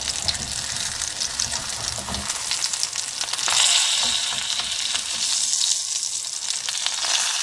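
Parmesan-crusted chicken breast fillets sizzling and crackling in hot vegetable oil in a pan, a dense hiss of small pops that swells a little about halfway through.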